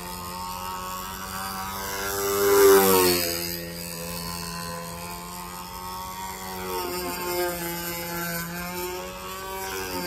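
Radio-controlled model airplane's motor and propeller droning in flight. It passes close about two to three seconds in, getting loudest there with the pitch dropping as it moves away, then drones on at a steadier level.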